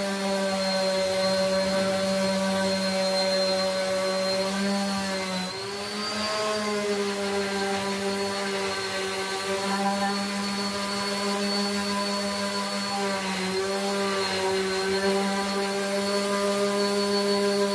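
Electric random orbital sander running steadily as it sands the willow blade of a cricket bat, a constant motor hum with brief dips in pitch about five seconds and thirteen seconds in.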